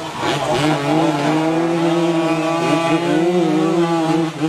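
A motorcycle engine held at high revs, giving a loud, near-steady note for about four seconds, while the rear tyre spins in a smoky burnout.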